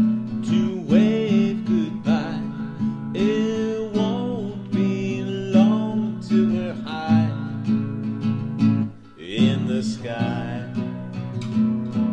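A folk song with strummed acoustic guitar and a melody line sliding up and down over it.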